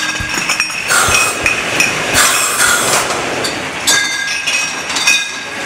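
Glass wine bottles clinking and knocking against each other and the machinery on a bottling line, with short ringing glass tones and irregular mechanical knocks.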